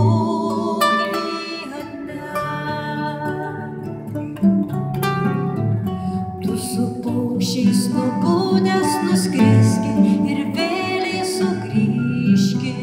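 Acoustic guitars playing a song with plucked notes, with singing over them.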